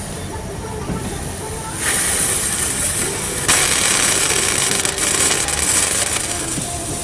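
CO2 cartridge inflator releasing gas through a bicycle tyre valve: a loud, high hiss that starts about two seconds in, grows stronger about a second and a half later, and eases near the end.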